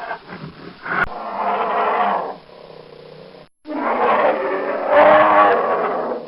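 Brown bear roaring: one call of over a second, a brief gap, then a longer, louder roar.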